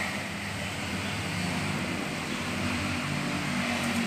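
Steady low mechanical hum over a wash of background noise.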